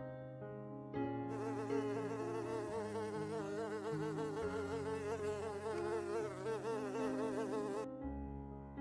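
A honeybee buzzing with a wavering pitch. It starts about a second in and stops near the end, over soft background music.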